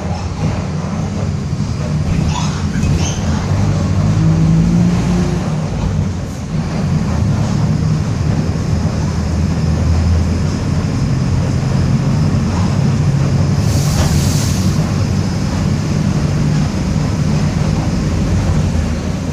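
Mercedes-Benz OF-1722M city bus under way, its diesel engine and drivetrain running with a low growl from a noisy differential. A short burst of air hiss comes about fourteen seconds in.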